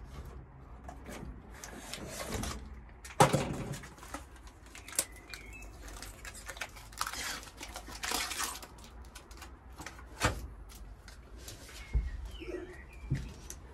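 Foil-faced sound-deadening liner crinkling and rustling as it is handled and pressed onto a van's bare sheet-metal wall panel, with several sharp knocks on the metal, the loudest about three seconds in. Birds chirp faintly in the background.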